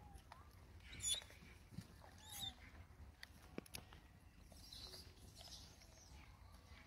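Faint calls from a feeding troop of rhesus macaques: short arched coo calls and two sharp high squeaks, about one and two and a half seconds in, with scattered light clicks.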